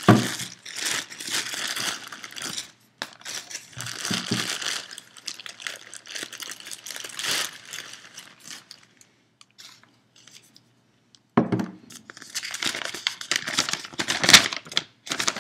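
Packaging crinkling and rustling as a parcel is unpacked by hand, in irregular bursts, with a pause of about two seconds about two-thirds of the way through.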